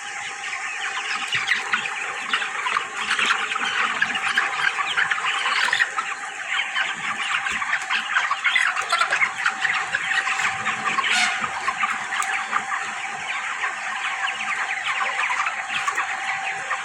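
A large flock of broiler chickens in a poultry house, many birds peeping and clucking at once in a continuous dense chatter, with a steady faint tone underneath.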